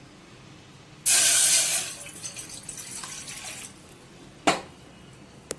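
Water poured from a cup into a cooking pot on the stove: a loud splashing rush about a second in that tapers off over the next two seconds, then a single sharp knock near the end.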